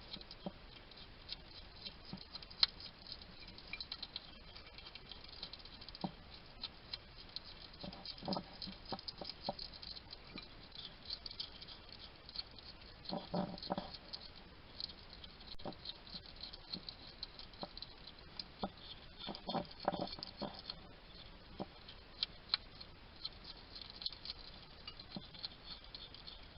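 A hedgehog eating: rapid, continuous crunching and chewing of food, with short snuffling vocal sounds three times.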